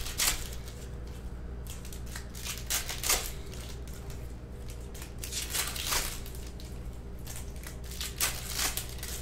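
Trading cards being handled and stacked: a few brief, sharp rustling swishes as cards are slid and flipped onto a pile.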